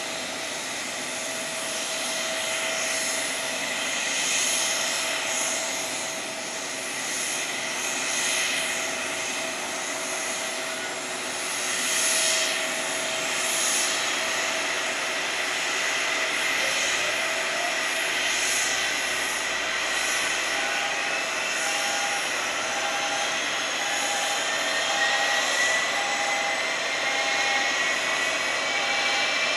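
General Electric GE90 turbofan on a Boeing 777 starting up over a steady airport jet din. From about two-thirds of the way through, a rising metallic whine builds as the engine spools up. An intermittent beep sounds about once a second.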